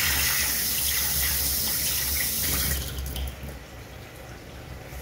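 Kitchen tap running water into a sink for about three seconds, then shut off.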